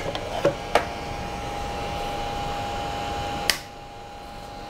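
Small 3D printer's cooling fan running with a steady hum, with a few light clicks as the finished print is handled. A sharp click comes about three and a half seconds in, and after it the hum is quieter.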